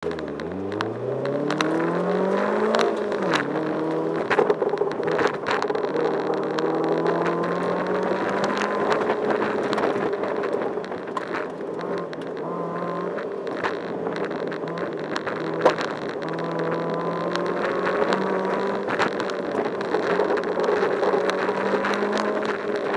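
Car engine on an autocross run: it revs up hard from the launch, drops at a gear change about three seconds in, then runs at middling revs that rise and ease through the course, with scattered sharp knocks and clicks.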